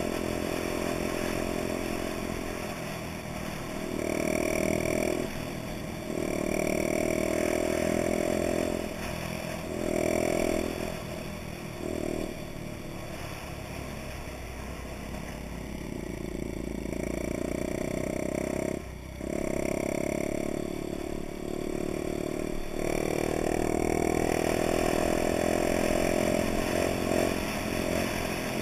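Honda Dax's small four-stroke single-cylinder engine running under way, the throttle opened and eased off again and again so the engine note swells and falls back in repeated surges, with a brief sharp drop about two-thirds of the way through.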